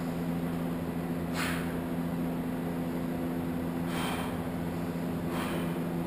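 A weightlifter's short, sharp breaths, three of them, while holding a loaded barbell through shrugs, over a steady low hum.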